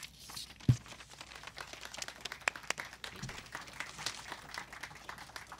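Scattered applause from a small audience, with a single low thump about a second in.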